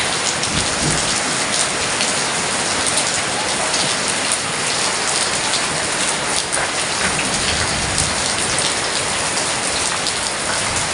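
Heavy rain falling steadily, a dense hiss with many individual drops spattering on surfaces.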